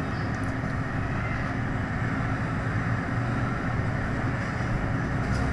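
Steady low hum and hiss of background noise, with no distinct events.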